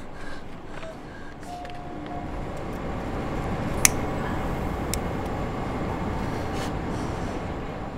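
A sharp click of a cigarette lighter as a cigarette is lit, about four seconds in, with a fainter click about a second later, over a low steady background noise that grows louder a few seconds in.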